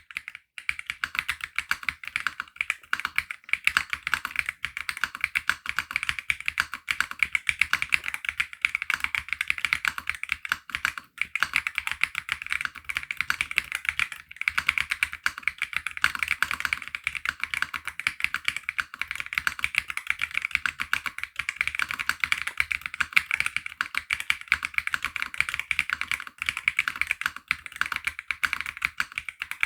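Continuous fast typing on a Womier RD75 Pro gasket-mounted mechanical keyboard fitted with Womier Full POM switches: a steady, dense run of keystrokes.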